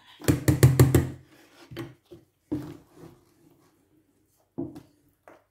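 Wooden turning stick knocking against the side of a steel pot while stirring thick plantain moi moi batter: a quick run of about six knocks in the first second, then single knocks every half second to a second.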